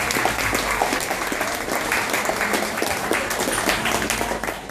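Audience of seated guests applauding: dense, steady clapping from many hands that begins to thin out near the end.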